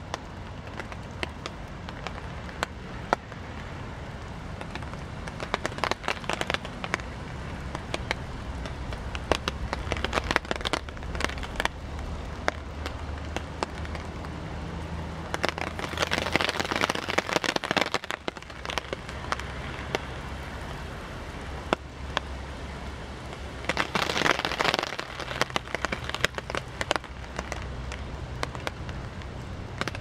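Heavy typhoon rain falling through a forest canopy, a steady hiss with many close drops tapping sharply. It swells into two louder rushes, one about halfway through and one near the end.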